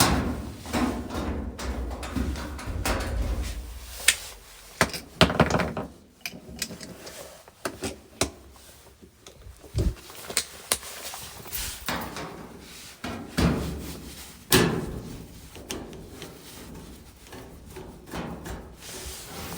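Irregular knocks, thuds and rattles of a dryer and its panels being handled and moved into place.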